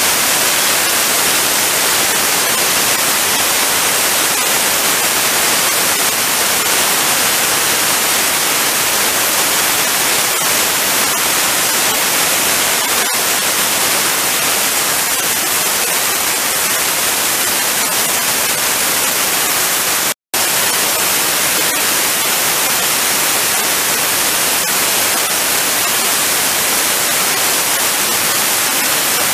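HVOF (high-velocity oxy-fuel) thermal spray gun firing its flame jet while spray-coating a metal part: a loud, steady hiss, strongest in the high pitches. The sound cuts out for an instant about twenty seconds in.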